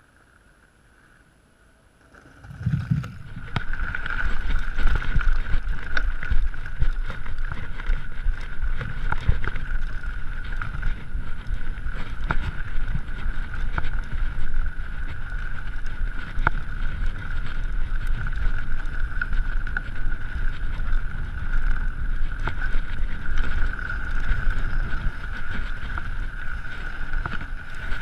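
Mountain bike riding down a rough dirt and gravel trail: continuous tyre rumble with small clicks and rattles from the bike, and wind buffeting the camera microphone. It is quiet for about the first two seconds, then the riding noise starts abruptly, with a steady high-pitched tone running under it.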